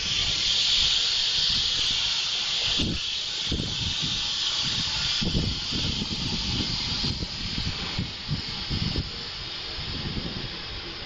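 Large trucks hauling trailers driving past: a steady hiss of tyres and air that slowly fades, with uneven low rumbling from about three seconds in.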